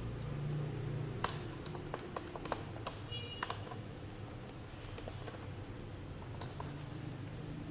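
Scattered small clicks and taps of a screwdriver and hands working screws out of the plastic bottom case of a Dell Inspiron 15 laptop, busiest in the first three seconds. A faint steady hum runs underneath.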